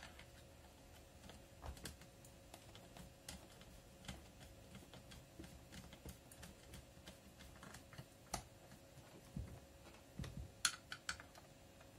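Faint, scattered clicks and small metallic taps of a screwdriver tightening screws on a two-stroke chainsaw's carburetor, with a few sharper clicks in the last few seconds.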